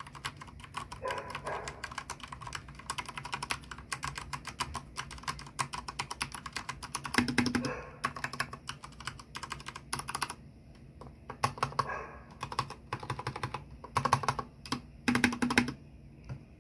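Typing on a Corsair K70 TKL mechanical keyboard with Cherry MX Speed Silver linear switches, as a sound test: fast runs of key clicks for the first ten seconds or so, then slower bursts. A few keystrokes land deeper and louder.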